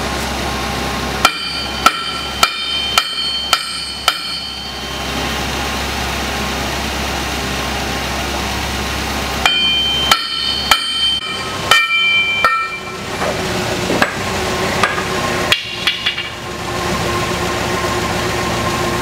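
Heavy hammer blows ringing on the steel drive-wheel hub of a Case 8120 combine, knocking the track drive wheel loose from the axle. A run of six blows comes about two a second, then after a pause a second run of about six, then a few slower blows near the end.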